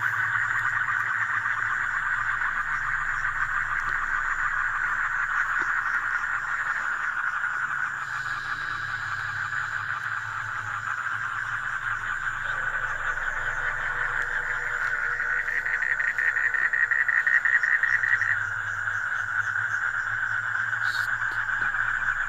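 Dense, steady chorus of frogs and insects calling at a pond, a fast continuous trill that swells a little past the middle.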